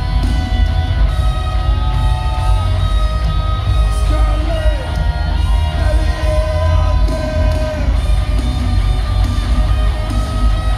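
Loud live rock music played by a band in an arena, heard from the crowd: distorted electric guitars over a heavy bass.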